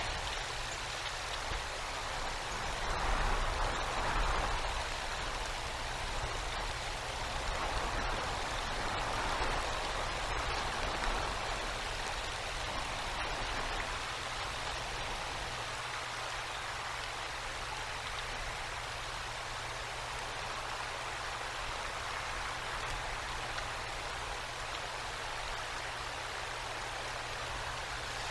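Steady rush of a winter storm: wind-driven icy rain and snow, swelling a couple of times in the first ten seconds, with faint scattered ticks and a low steady hum underneath.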